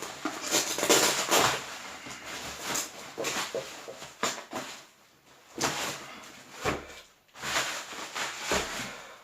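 Packaging being handled as a cardboard box is pulled out of a shipping parcel: irregular rustling and scraping of cardboard and plastic wrap, with a few light knocks.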